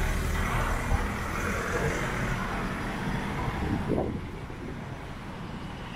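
City street ambience: a steady low rumble under a wash of noise, easing off a little about four seconds in.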